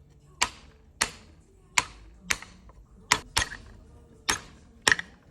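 Sharp taps on metal, about nine strikes at an uneven pace of roughly one every half second, each ringing briefly, while a GM power steering pump is being taken apart.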